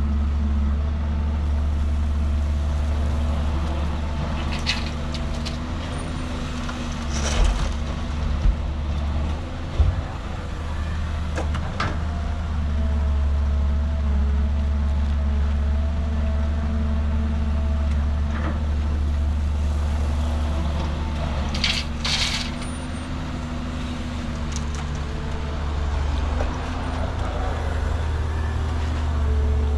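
Caterpillar 320 GC hydraulic excavator working, its diesel engine running steadily with its tone shifting slightly as it digs and loads a dump truck. A few scattered knocks and a couple of short hisses are heard.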